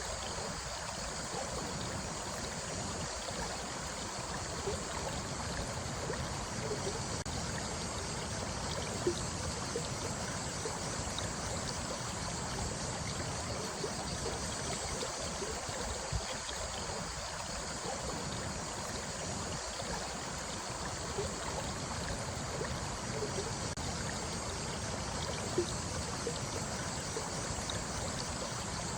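Running water flowing steadily, with a few brief louder plinks about 9, 16 and 26 seconds in.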